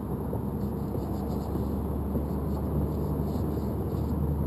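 Brushless motors and propellers of a landed hexacopter (six 750Kv Turnigy motors with 10-inch props) turning at idle: a steady low hum, slowly growing a little louder.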